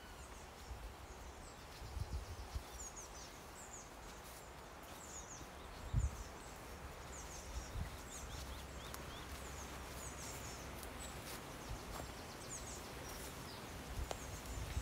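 Small birds singing in the bankside trees and reeds, short high chirps repeated throughout, over a low rumble of wind on the microphone. A few soft thumps, the clearest about six seconds in.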